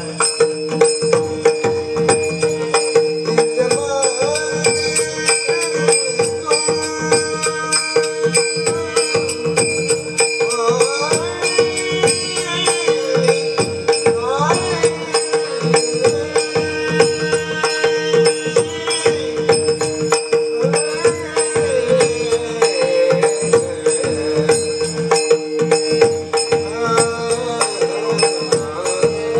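Instrumental passage of a Marathi devotional bhajan: a steady held drone with a melody line gliding over it, and fast, even metallic jingling keeping the beat.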